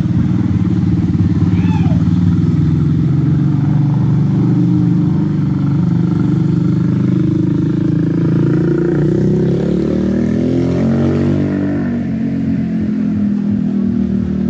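Motorcycle engine running, then revving as it rides past, the pitch climbing about eight seconds in and falling away again near the end.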